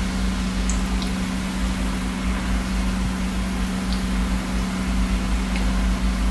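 Thin strands of gram-flour sev sizzling steadily as they deep-fry in hot oil in a kadai, over a steady low hum. A few faint ticks come from the utensil against the pan.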